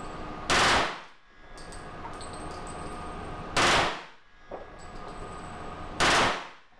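Glock 22 .40 S&W pistol converted to full-auto fire, shooting three short, very loud bursts about three seconds apart. Each burst is followed by a fading echo off the walls of the indoor range.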